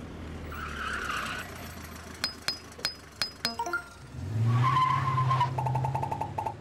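Animated-logo sound effects over a steady rain-like hiss: a quick run of about six sharp clicks, then, about four seconds in, a vehicle engine and a tire screech as a cartoon ambulance pulls up, ending in a fast pulsing tone.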